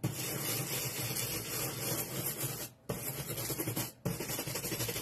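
A small scrub brush scrubbing back and forth over a foil transfer sheet, a steady scratchy rubbing that breaks off briefly about three seconds and four seconds in. The foil is being burnished down onto foil adhesive so that it transfers.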